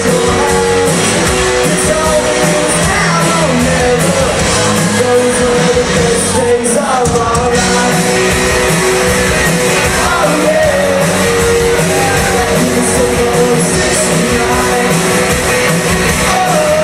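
Live rock covers band playing a song with a lead singer, amplified and loud in a large hall.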